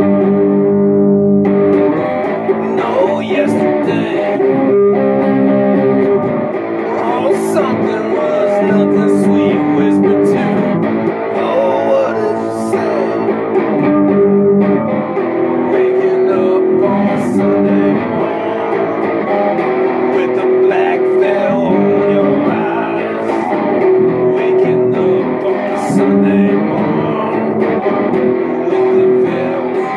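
Guitar music, with held chords that change every second or two.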